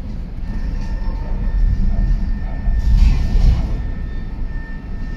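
Tram running along street track, heard from inside the car: a steady low rumble of wheels on rails with a faint high whine, and a brief rush of hissing noise about three seconds in.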